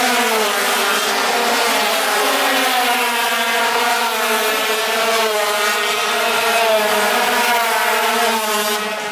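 Several racing motorcycles passing one after another at high revs, their engine pitch rising and falling as they go by.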